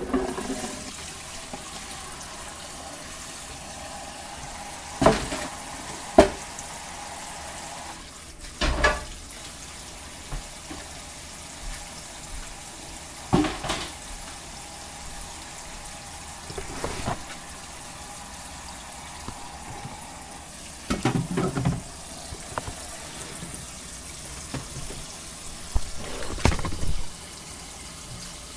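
Kitchen tap running into a sink, a steady rush broken by about seven short knocks and clatters as things are handled at the counter.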